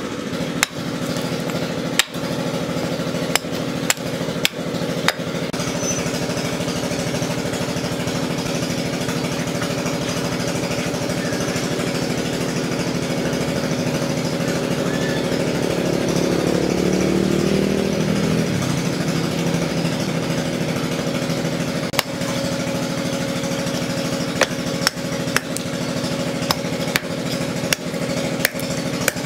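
Hatchet chopping a block of root wood on a stump: a handful of sharp strikes in the first few seconds, a long stretch with none, then a quicker run of strikes near the end. A steady mechanical hum runs underneath throughout.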